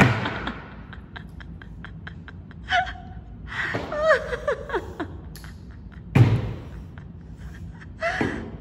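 Table-tennis ball bouncing in a quick run of light ticks, the bounces coming faster, then a child's voice exclaiming with rising and falling pitch; two louder knocks, at the start and about six seconds in.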